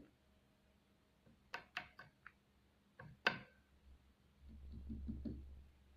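Deathwatch beetle tapping its head against wood, the signal it uses to attract a mate: a quick run of four sharp taps, then two more about a second later. A low hum comes in near the end.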